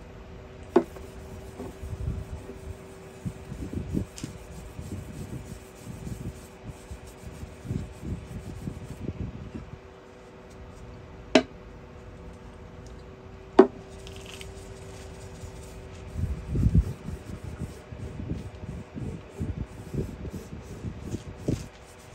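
A hand rubbing sanding sealer onto a turned purpleheart wood handle on the lathe, in irregular strokes. Three sharp clicks stand out, and a steady faint hum runs underneath.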